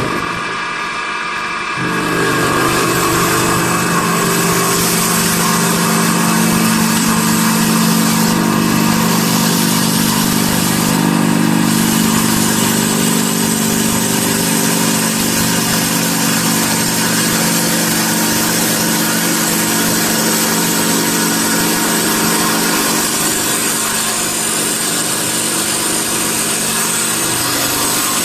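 CNC wood turning and sanding lathe running, spinning a wooden cylinder against its brush sanding wheel: a steady motor hum under a broad hiss. The hum grows stronger about two seconds in and then holds steady.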